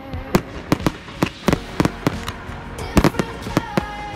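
Aerial firework shells bursting in a rapid, uneven string of sharp bangs, about three a second.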